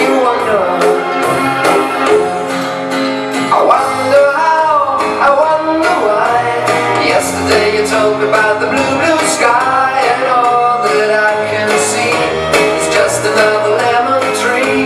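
A song with singing over guitar and a steady beat, played as music for a dance.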